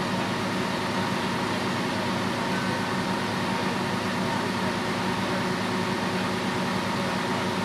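Steady drone of a turntable-ladder fire engine's diesel engine running to power its raised ladder, with a faint steady tone above it.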